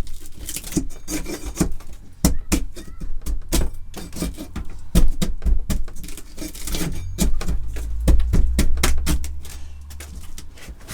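Irregular knocks, clicks and rubbing from rotten wooden wall timbers being handled and wobbled, with low handling rumble.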